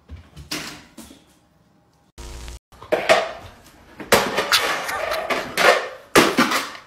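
Boxer dogs playing with a plastic disc toy on a tile floor: a few knocks, then from about three seconds in a dense run of clatters and knocks.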